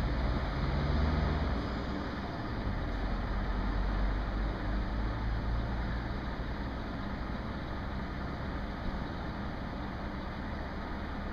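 Suburban electric multiple unit standing at the platform with doors open, its onboard machinery running with a steady hum. A deeper low hum is strongest at first and eases off about two seconds in.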